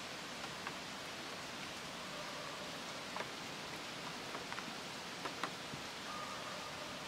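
Steady soft hiss of outdoor background ambience, with a few faint scattered ticks and clicks.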